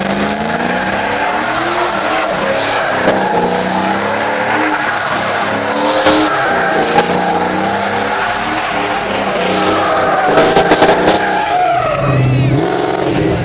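Pontiac Trans Am's LS V8 revving hard through a donut burnout, its pitch rising and falling, while the rear tires squeal and skid on the asphalt. A few sharp cracks cut through in the second half.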